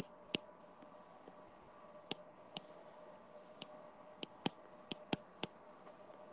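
Stylus tapping on a tablet screen while handwriting: about ten light, sharp taps at an uneven pace, bunched more closely in the second half, over a faint steady hum.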